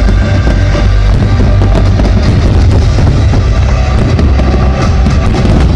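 Fireworks display set to loud music: shells bursting and many sharp crackles over a continuous musical soundtrack, the crackles growing denser about two seconds in.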